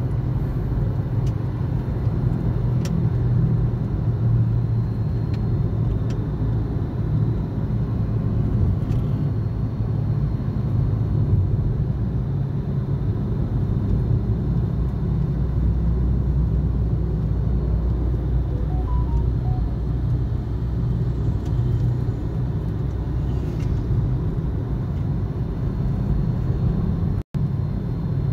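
Car driving, heard from inside the cabin: a steady low rumble of engine and road noise. The sound cuts out for an instant near the end.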